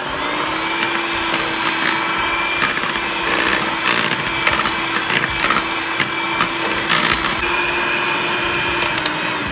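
Electric hand mixer running at one steady speed, its twin wire beaters whisking thick cake batter of flour, eggs and milk in a bowl, with occasional clicks as the beaters knock the bowl. It is switched off near the end and its hum winds down.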